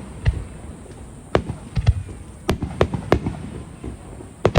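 Fireworks going off in a festival display: a string of sharp bangs at irregular intervals, some in quick pairs, about eight in all.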